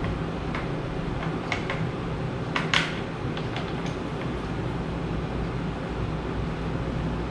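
Steady fan-like hum, with a few light clicks and rustles in the first three seconds and the loudest a little under three seconds in: a camera gimbal and its packaging being handled during unboxing.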